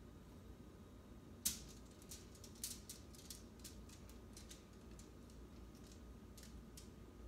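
Spatula scraping thick chocolate fudge out of a stainless steel saucepan into a foil-lined pan: a sharp clink about a second and a half in, then a run of short scrapes and taps, and two more near the end.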